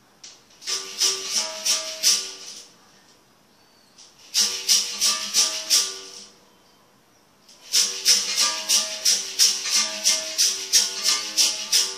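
Berimbau played with a stick and caxixi basket rattle: quick rhythmic strikes on the steel wire, with the rattle shaken on each stroke and the bow's tone switching between a lower and a higher note. The rhythm comes in three phrases with short pauses between them, the last and longest starting near the middle.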